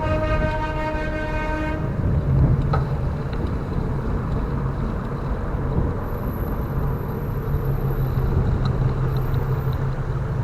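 A vehicle horn sounds in one long, steady blast that cuts off about two seconds in. Steady traffic noise with a low engine hum follows.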